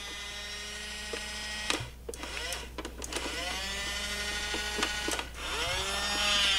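A battery-powered toy garbage truck's small electric motor whirring as it raises its front fork arm. It stops briefly about two seconds in and again just after five seconds.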